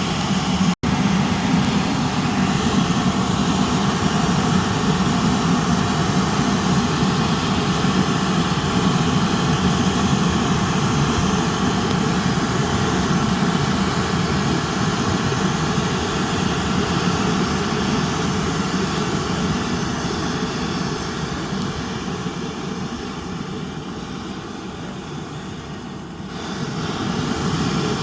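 Two pressurised petrol vaporiser burners of an ex-Swiss-army stove burning at a high flame, a steady, loud rushing hiss. It eases off for a few seconds past the middle and comes back up near the end.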